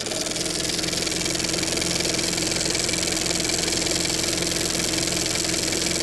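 Old-film intro sound effect: a steady static hiss over a low, even hum.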